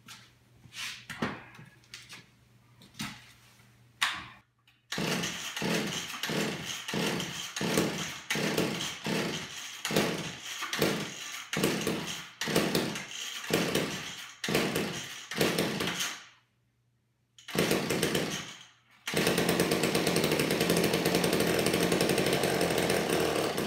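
Old McCulloch two-stroke chainsaw being pull-started on a splash of fresh fuel with the choke closed. After a few knocks it catches about five seconds in and runs roughly in pulses, dies, fires again briefly, then runs steadily near the end before cutting off. That it starts at all shows the spark is good, which the owner takes to mean the fault is in the carburetor.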